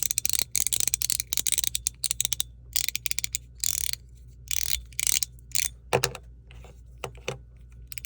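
Chenyu Guardian mechanical fidget slider in PEI plastic being worked back and forth: its balls click and clack over the track in rapid runs, then in shorter clusters with pauses, and the plastic body makes it noisy.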